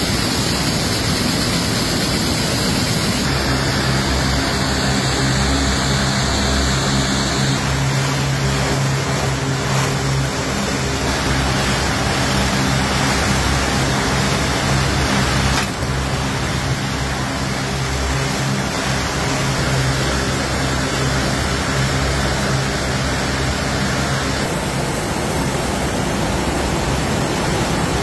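Loud, steady din of jute mill machinery, spinning frames and yarn winding machines running together, with a low hum under the noise. The mix of the noise changes abruptly a few times.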